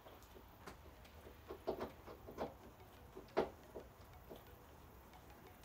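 Faint clicks and scrapes of a screwdriver working a screw out of the plastic inner trim panel of a hatchback's tailgate. A cluster of small ticks comes in the middle, the sharpest about three and a half seconds in.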